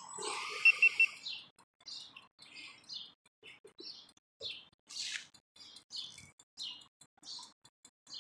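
Small birds chirping, short high chirps every few tenths of a second. About a second in, a brief hiss and three quick, evenly spaced high electronic beeps.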